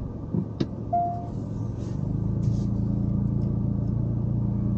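Car engine running steadily, heard from inside the cabin, its low hum growing a little louder about two seconds in. A single click comes just before one second, and a short beep follows at about one second.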